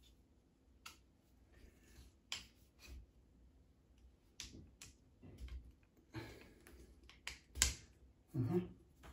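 Aluminium frame of a folding camping table clicking and clattering as its legs and joints are worked into place by hand: a run of irregular sharp clicks, the loudest near the end.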